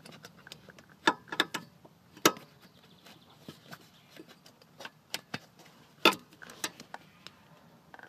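Rear seat-belt buckle mechanism of a Volkswagen Caddy handled by hand: irregular sharp clicks and knocks, the loudest about a second in, twice more within the next second, and once about six seconds in, with lighter ticks between.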